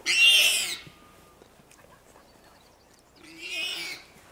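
Warthog squealing in distress while lions hold it: two shrill squeals of less than a second each, one right at the start and one about three seconds in.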